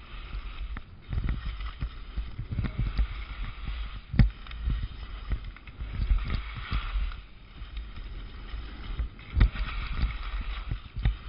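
Skis sliding and scraping over snow on a downhill ski run, the hiss swelling and fading with each turn, over wind rumble on the microphone. Two sharp knocks, about four seconds in and again later on.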